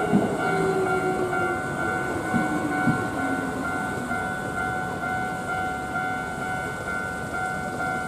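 A Hankyu train pulls away over the level crossing, its motor whine falling in pitch and its wheels clacking over the rail joints for the first three seconds or so, then fading. Through it the level-crossing alarm keeps ringing its steady repeated electronic ding, with the barriers still down.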